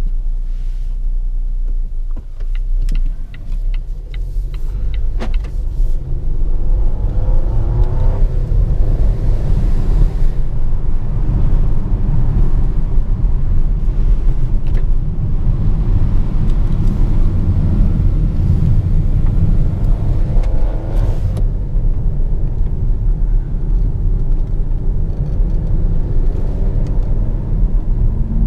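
Volvo XC40 T5 driving, its 2.0-litre turbocharged four-cylinder petrol engine under a steady low rumble of tyres and road. Scattered clicks come in the first few seconds. The engine note climbs about eight seconds in, and a louder rush of road noise runs from about six seconds in until it drops back about twenty-one seconds in.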